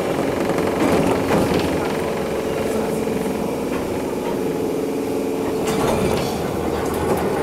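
Enoden electric train running, heard from inside the carriage: a steady hum over the rumble of the wheels, with a few light clicks.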